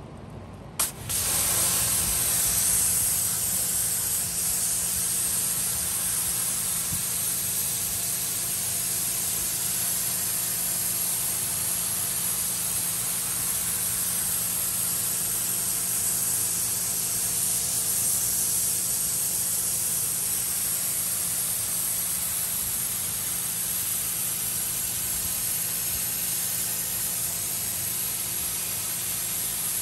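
Pressure-washer jet blasting a carpeted minivan floor mat: a click about a second in, then a loud, steady hiss of high-pressure water spraying on the carpet, with a steady low hum underneath.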